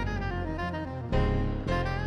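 Instrumental passage of a jazz-tinged pop song: a saxophone plays a melodic line over bass and band backing, with a stronger phrase coming in just past the middle.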